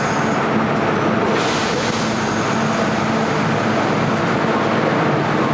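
Kintetsu 12400 series electric limited express train departing the station: a steady hum under an even wash of running noise.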